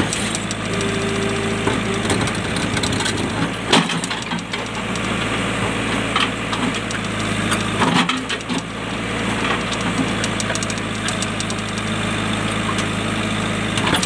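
JCB backhoe loader's diesel engine running steadily while the backhoe bucket digs into rocky ground. Two sharp knocks, about four seconds in and again near eight seconds, come from the bucket striking rock.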